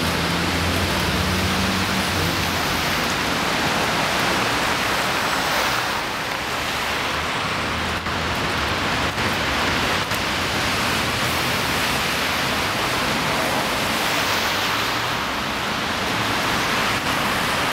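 Steady, even hiss of outdoor street noise, with a low hum in the first two seconds and a few faint clicks in the middle.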